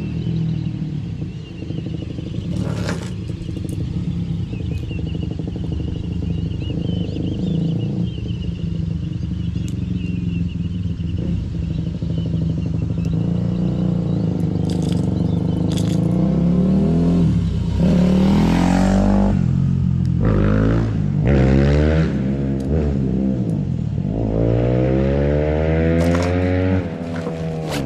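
A vehicle engine running while driving, with road noise. In the second half the engine pitch repeatedly climbs and drops as it speeds up and shifts.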